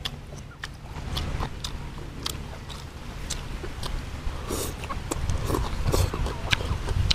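A person eating close to a clip-on microphone: chewing with many short wet mouth clicks and slurps of fish porridge and leafy greens, over a steady low rumble.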